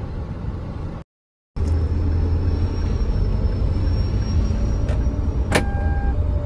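Steady engine and road rumble inside a car's cabin while driving, cutting out for half a second about a second in. Near the end a click is followed by the seat-belt warning chime starting to beep at an even pace.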